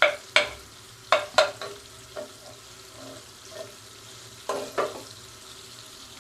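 A metal spoon clinking against a metal cooking pot in a string of sharp, briefly ringing strikes, most in the first two seconds and two more about four and a half seconds in. Under them runs a faint steady sizzle of butter and ghee melting in the hot pot.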